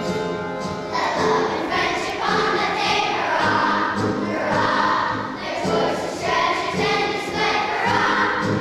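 Children's choir singing, coming in about a second in after a short instrumental passage.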